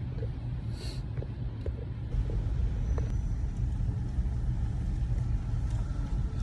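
Car on the move: a steady low engine and road rumble that grows louder about two seconds in, with a few faint clicks.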